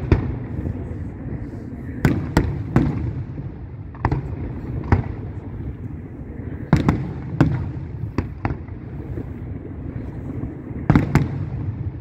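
Aerial firework shells bursting overhead: about a dozen sharp bangs, several coming in quick pairs, over a steady low rumble.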